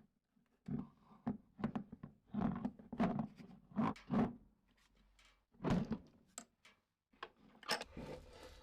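A rapid, irregular series of knocks and thunks, about fifteen in all, with a short lull about halfway through.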